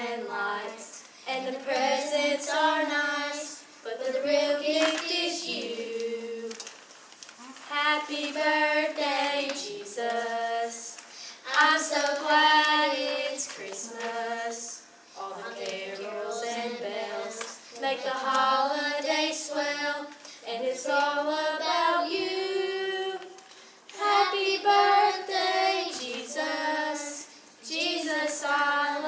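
Children's voices singing together, in sung phrases a few seconds long with short breaths between them.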